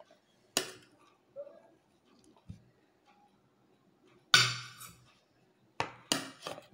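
Metal spoon clinking against a plate: four sharp separate clinks, the loudest a little past four seconds in, with two close together near the end.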